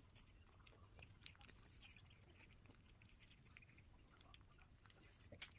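Pomeranian puppy eating from its bowl: faint, scattered crunching and clicking of fast chewing.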